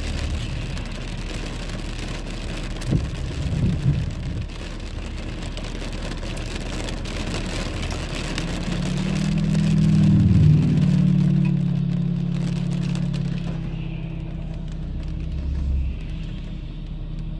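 Rain beating steadily on a car's windshield and roof, heard from inside the car. A vehicle engine swells, loudest about ten seconds in, then fades.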